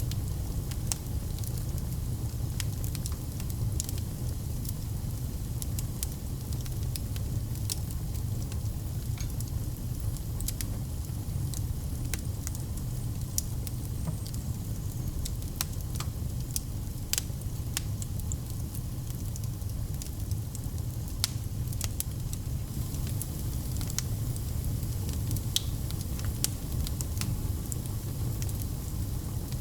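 Wood fire burning in a fireplace, with a steady low rumble under frequent sharp, irregular crackles and pops.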